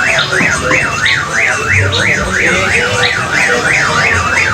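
An electronic warbling tone that sweeps up and down evenly, about three times a second, like a car alarm or siren, with faint chirps beneath it.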